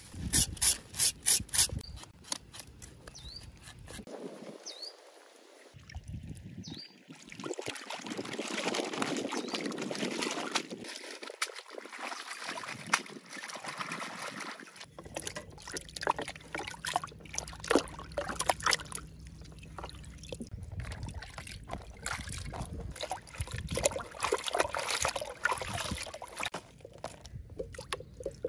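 A run of sharp knocks at the start, then water splashing and trickling as fish are rinsed by hand in a bamboo basket dipped in lake water. Later, hands swish and splash through a bucket of water, washing chillies and herbs.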